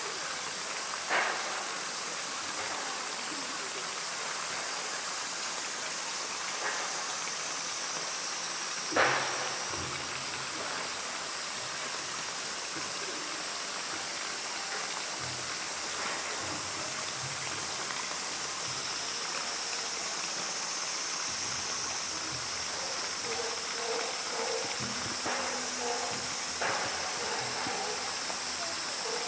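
Steady rushing, hissing background noise, with a sharp knock about a second in and a louder one about nine seconds in.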